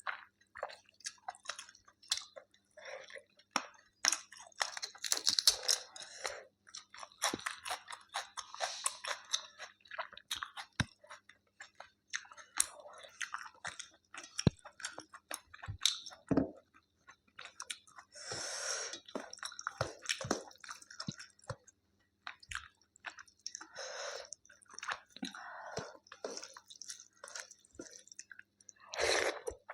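A person chewing and biting food: a string of irregular sharp clicks and short bursts of mouth noise, with brief pauses between bites.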